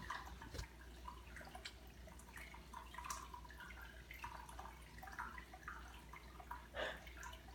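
Faint room tone: a steady low hum with scattered soft clicks and ticks.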